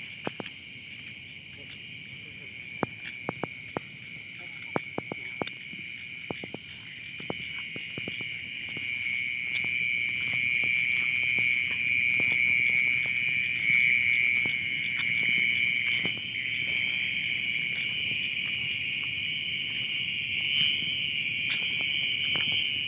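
Night insect chorus: a steady high shrill with a fast pulsing trill above it, growing louder about eight seconds in. Scattered light clicks and knocks in the first several seconds.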